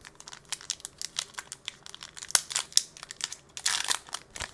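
Foil wrapper of an Upper Deck hockey card pack crinkling in the hands and being torn open, with a denser tearing rustle about three and a half seconds in.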